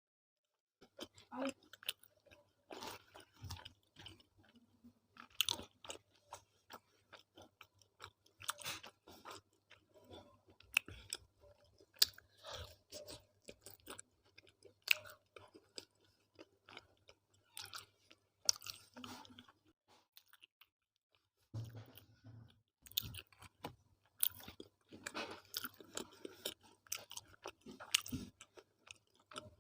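Close-miked eating of tawa roti with arhar dal and methi-aloo sabji: chewing, wet mouth clicks and lip smacks in quick irregular bursts, with a short pause about two-thirds of the way through.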